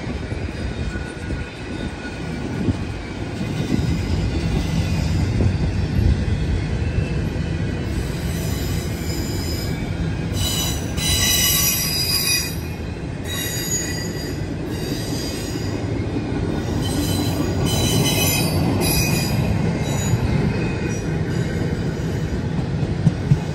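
Double-stack intermodal freight train's well cars rolling past with a steady low rumble. High-pitched wheel squeal comes and goes in several bouts through the middle of the passage.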